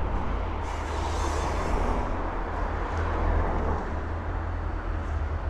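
Road traffic going by on a street: steady tyre and engine noise with a low rumble, one vehicle swelling past about a second in.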